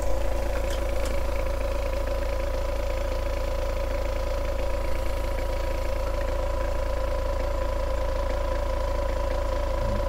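Steady machine or electrical hum: a low drone with a constant mid-pitched tone over it, unchanging throughout.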